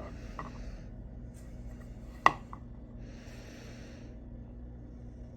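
Knife being handled while its edge is checked: two soft scraping strokes and one sharp click about two seconds in, over a steady low electrical hum.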